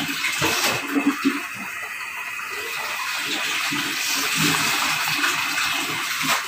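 Pot of sinigang broth boiling, bubbling steadily under a layer of kangkong leaves.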